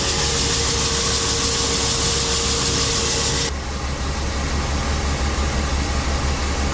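Grain-drying machinery running: a steady low hum with a loud rushing hiss and a steady whine over it, both of which cut off suddenly about three and a half seconds in, leaving the hum running.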